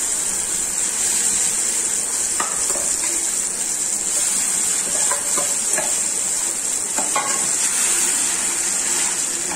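Red chilli and garlic paste sizzling steadily in hot mustard oil with cumin seeds in a small pan. A spatula stirs it, with a few faint scrapes against the pan.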